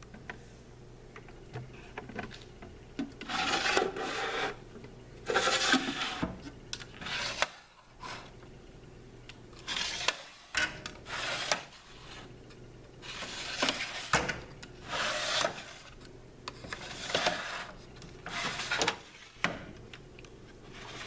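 Repeated rough scraping or rubbing strokes, each lasting about a second, with short pauses between them.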